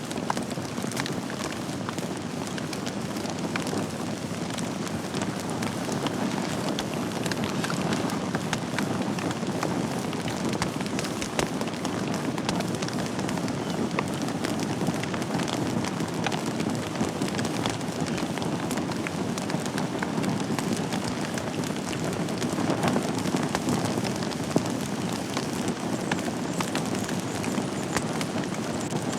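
Wood fire burning in a fireplace: a steady low rushing of the flames with frequent sharp crackles and pops from the burning logs.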